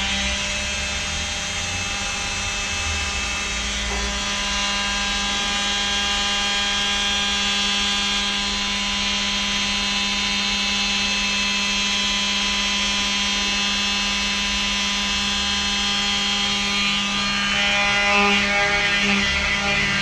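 Electric sander running steadily against the metal body of a refrigerator, a constant motor hum and whine with a rough scraping edge. It grows a little louder and rougher near the end.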